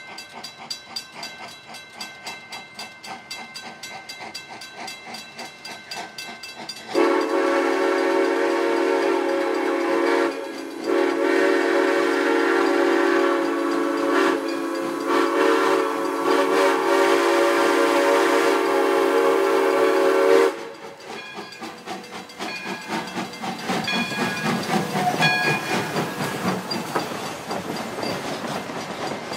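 Grade-crossing bell ringing steadily. About seven seconds in, a locomotive whistle sounds one long blast of about thirteen seconds, with a brief break near its start, then cuts off. The train then rolls past the crossing with wheels clacking over the rails while the bell keeps ringing.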